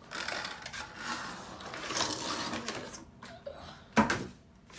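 Packaging of a Sephora Play subscription box being handled and opened: rustling and scraping, then a single sharp knock about four seconds in.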